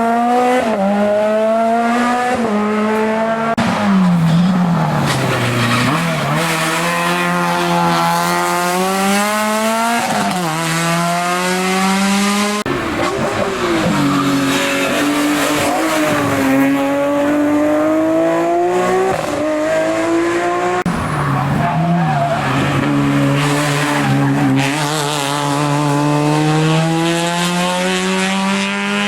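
Hill-climb race car engine at full throttle, its pitch climbing and dropping back again and again as it shifts up and down through the gears.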